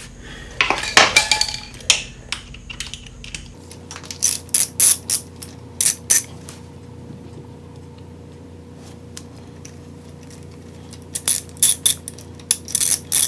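Hand ratchet with a socket on an engine cover bolt, clicking in quick bursts as it is swung back and forth: one group of clicks around four to six seconds in and a longer run near the end.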